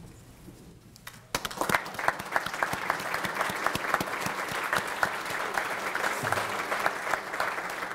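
Audience applauding, many people clapping together, starting about a second and a half in.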